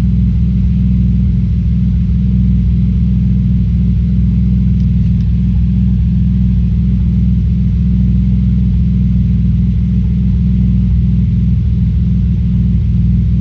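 Audi S4 B5's 2.7-litre twin-turbo V6 idling steadily after a cold start, running with a misfire.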